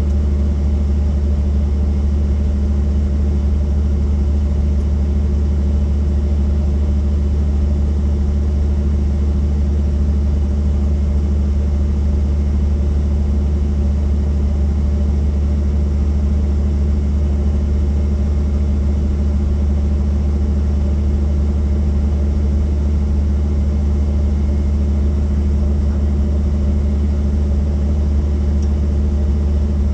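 A helicopter's engine and rotors running in a steady, unchanging low drone.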